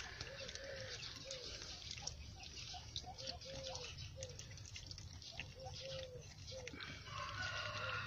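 Puppies lapping milk from a bowl: quick wet clicks of tongues in liquid. A short, low, arching call repeats about once or twice a second over the lapping.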